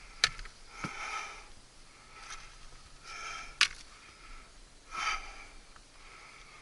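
A man breathing heavily, a breath about every second or so, winded after a long crawl through a tight crawl space. A few sharp clicks or knocks come in between.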